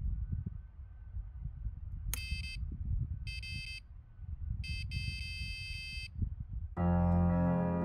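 Electronic fishing bite alarm sounding in three bursts of a high beeping tone, the last the longest, typical of a fish taking line on a run. A low, uneven rumble lies underneath, and piano music comes in near the end.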